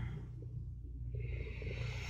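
Quiet room tone: a steady low hum, with a soft hiss coming in about a second in.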